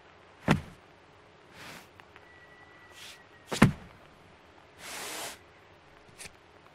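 Two sharp knocks about three seconds apart, the second one louder, with short scraping hisses between them, a longer hiss about five seconds in, and a small click near the end.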